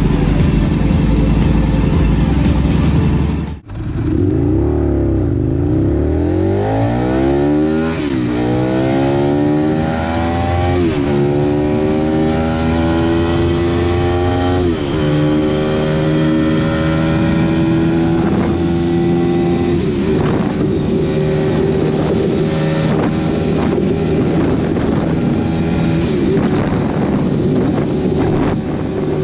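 Aprilia RSV Mille's V-twin engine idling, then, after a sudden cut, the motorcycle accelerating hard through the gears. The engine note climbs and drops back with three upshifts, then holds a steady high-speed note for the second half.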